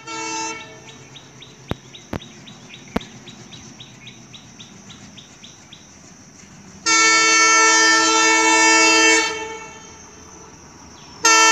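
Alco WDM-3D diesel locomotive's air horn sounding one long blast of about two and a half seconds, about seven seconds in, and starting again just before the end, with a short horn note at the very start. Before the long blast there is faint chirping, about four chirps a second, with a few sharp clicks.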